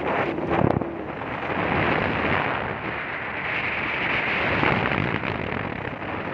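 Wind buffeting the microphone of a moving Vespa scooter, a steady rushing noise with road and engine noise underneath and a brief knock under a second in.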